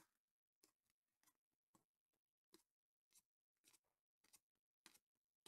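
Very faint slide and flick of glossy trading cards being dealt one at a time off a stack from hand to hand, about two short swishes a second.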